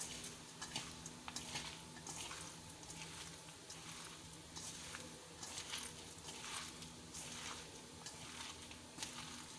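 A hand tossing and mixing shredded raw vegetables with spices in a steel bowl: faint, irregular rustling, over a faint steady low hum.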